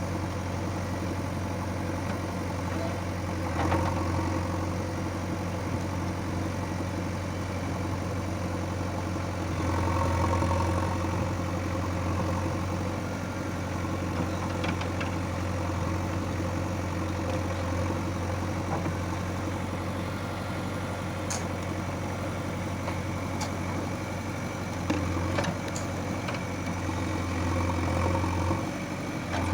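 Diesel engine of a JCB 3DX backhoe loader running steadily at a low pitch while it works, working harder and louder briefly about four seconds in and again around ten seconds in. A few sharp knocks and clicks come near the end.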